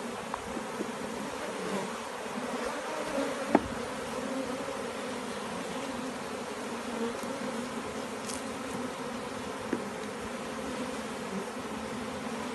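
A mass of honeybees buzzing in a steady hum around an opened colony as its comb is handled. A single sharp click cuts through about three and a half seconds in.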